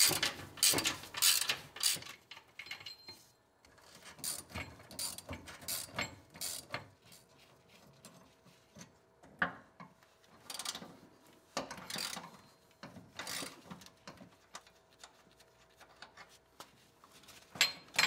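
Socket ratchet wrench clicking in short, irregular runs with pauses between, loosening the shift lever and shifter bolts on a Ford E4OD automatic transmission.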